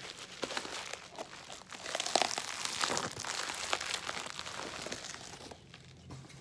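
Plastic wrapping crinkling and rustling as it is pulled off a ceramic bonsai pot, a dense crackle that dies down about five and a half seconds in.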